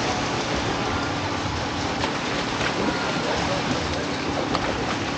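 Steady rushing outdoor noise of wind and surf on a beach, with faint voices of a crowd.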